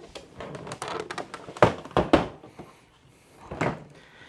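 Things being rummaged through and handled: a rustling clatter, then a few sharp knocks and thuds as objects are picked up and set down, the loudest two close together about two seconds in and another near the end.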